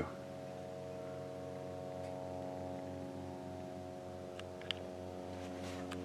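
2021 Blue Bird All American RE school bus's rear engine idling, heard from inside the cabin as a steady low hum of several tones.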